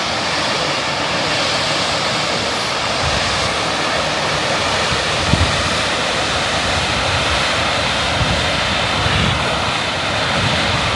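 Steady rushing roar of a high waterfall, with uneven low rumbles of wind buffeting the microphone.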